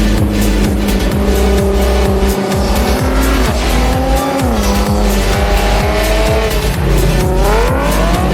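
Race car engines revving on a circuit, their pitch rising and falling through the gears, with one climbing sharply near the end. A backing track of electronic music with a steady beat plays over them.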